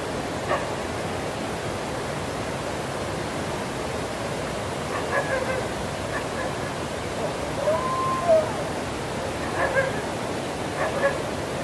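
Steady rushing noise throughout, with a dog giving a few short barks and yips from about five seconds in, including one brief whine near the middle.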